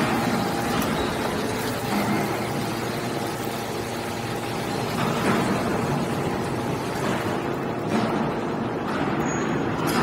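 Hydraulic scrap metal baler running, a steady hum from its hydraulic pump and motor as the ram pushes a compressed bale of steel turnings out of the chamber.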